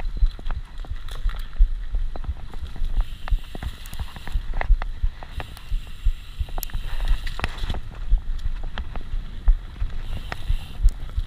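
Mountain bike rolling over a rough dirt trail: a steady low rumble under many sharp knocks and rattles as the tyres, frame and chain hit bumps.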